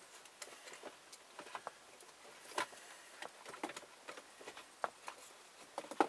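Faint, irregular clicks and taps of plastic dashboard trim as the climate-control panel is pushed and worked back into the dash. The panel is sticking rather than snapping into place.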